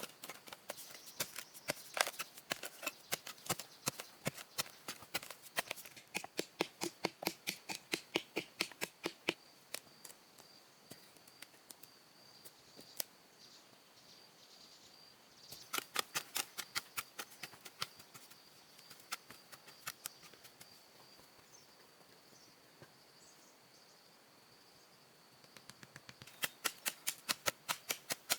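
Quick sharp taps or knocks, three or four a second, in runs separated by pauses, over a steady faint high-pitched whine.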